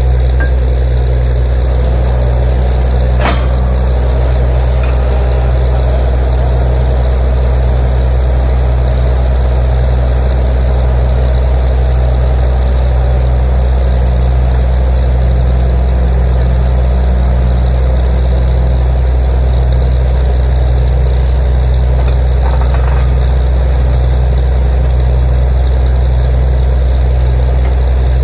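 Truck-mounted borewell drilling rig running steadily: a loud, deep, even engine drone that does not let up.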